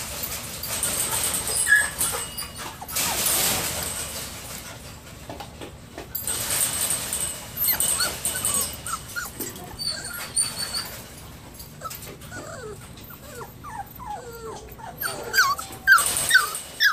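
German Shorthaired Pointer puppies whimpering and whining, many short high cries that come thicker and louder toward the end. In the first half, a noisy scuffling and rustling of the litter around their food.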